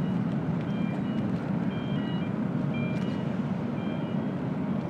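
A vehicle's reversing alarm beeps about once a second with a high two-note tone, over a steady low rumble.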